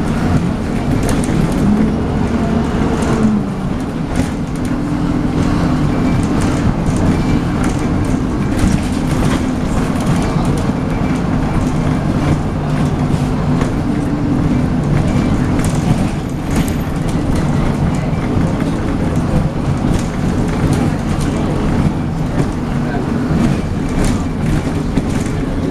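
MAN 18.240LF single-decker bus (Alexander Enviro 300 body) heard on board while driving. Its engine runs steadily and shifts in pitch, with the vacuum-cleaner-like whine that gives these buses the nickname "hoover". Short rattles and clicks are mixed in.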